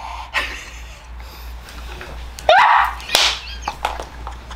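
A woman's short, high squeal about two and a half seconds in, with smaller vocal noises around it, as she reacts to eating a very sour candy.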